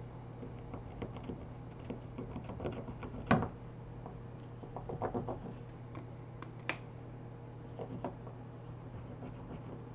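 Scattered light clicks and taps of small hand tools against a smartphone being taken apart, the sharpest about three seconds in and another near seven seconds, over a steady low hum.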